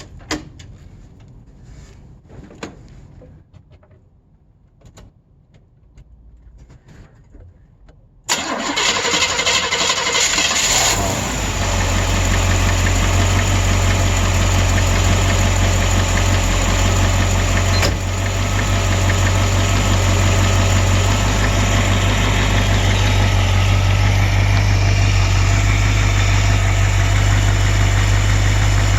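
A few faint clicks, then about eight seconds in a small-block Chevy V8 starts from cold, runs briefly faster and settles into a steady idle. The knock that is loud on the cold start and persists once it quiets is one the owner suspects is rod knock.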